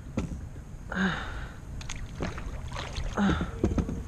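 Handling noise in a plastic kayak: scattered knocks and clicks of a fishing rod and paddle against the hull, with two slightly louder short sounds about a second in and a little after three seconds, over a low steady rumble of wind and water.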